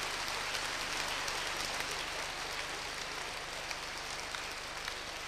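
Audience applauding steadily, easing slightly toward the end.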